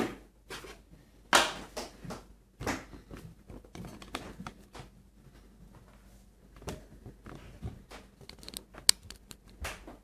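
Hands moving a laptop, a bare hard drive and an external drive enclosure about on a desk, and lifting the laptop's lid open: scattered knocks, scrapes and clicks, the sharpest click about nine seconds in.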